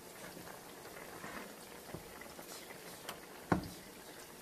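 Pot of mung beans boiling, a quiet steady bubbling, as the beans cook until nearly tender. A wooden spoon stirs in the pot and gives one short knock against it about three and a half seconds in.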